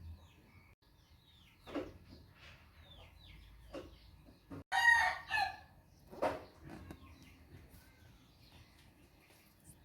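A rooster crowing once, about halfway through, the loudest sound here, with small birds chirping and a few faint knocks.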